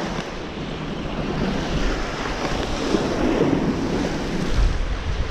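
Sea surf washing and breaking over shoreline rocks, with strong wind buffeting the microphone; a heavier gust of wind rumbles on the microphone near the end.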